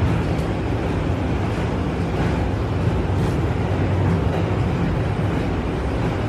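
Subway train running, a steady low rumble heard from inside the car.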